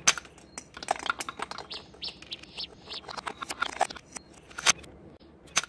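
Sharp plastic clicks and knocks from a handheld toy dart gun being worked and fired, knocking a ball off its stand, with short high bird chirps in the background.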